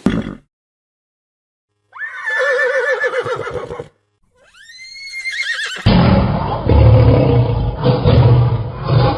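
A horse whinnies: a pitched call of about two seconds with a quavering pitch, followed by a shorter call that rises and falls. From about six seconds in, a loud, rough, low-pitched noise takes over.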